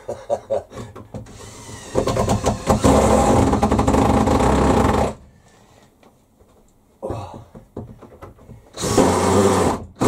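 Cordless drill-driver driving screws into timber, in a run of about three seconds and then a shorter burst near the end. The worn bit is slipping in the screw heads.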